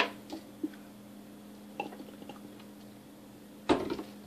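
A man swallowing pills with gulps of a drink: a few soft, wet swallowing sounds over a steady low hum, with a short louder noise near the end.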